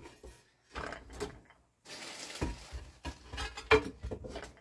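Fired ceramics and kiln furniture being handled: clinks, scrapes and knocks of stoneware and the kiln shelf, with the sharpest knock shortly before the end.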